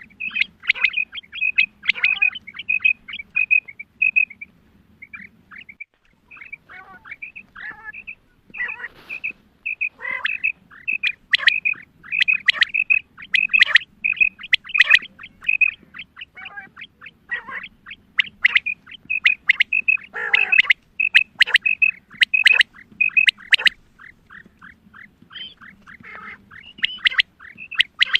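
Female quail calling: rapid trains of short, evenly pitched notes mixed with quick downward-sweeping chirps, coming in bursts with short lulls. This is a female call of the kind used to lure male quail.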